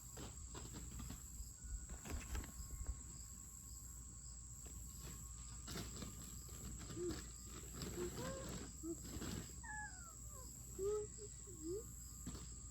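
A steady high insect drone over scattered rustles and scrapes of hands digging through loose soil. In the second half a toddler gives a few short babbling sounds.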